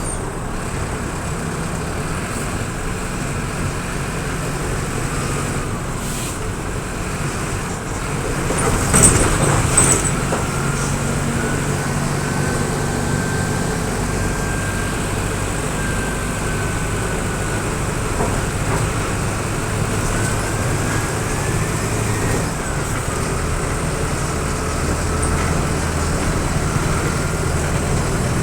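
Mercedes-Benz OF-1722M city bus's turbocharged diesel engine running under way, with a thin whistle (assobiando) that slowly rises and falls in pitch as the engine pulls and eases off. A short, louder hiss about nine seconds in.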